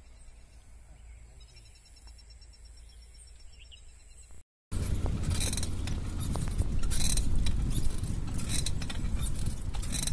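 Quiet at first, with faint insect chirping. About four and a half seconds in, after a brief cut, it turns into wind buffeting the microphone and repeated metallic rattling and clinking from a bicycle being ridden along the road.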